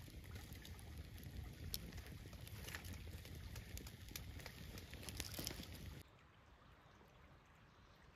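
Wood campfire crackling, with scattered sharp pops over a low rumble of burning wood. About six seconds in it cuts to a much quieter outdoor hush.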